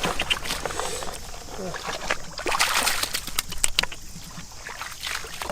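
Shallow water splashing and sloshing in irregular bursts as someone wades and gropes by hand, with low voices underneath.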